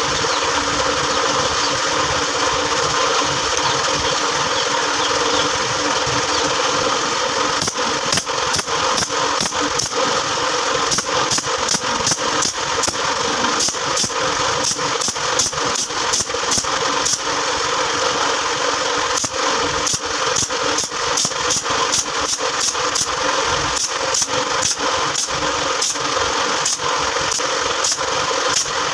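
Pneumatic nail gun firing nails into plywood: sharp shots, about one to two a second, starting about eight seconds in with short pauses now and then, over a steady machine drone.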